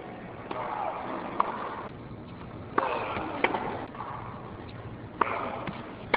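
Tennis ball struck by rackets in a rally: sharp pops of racket on ball and bounces on the court, roughly one a second, over steady background noise.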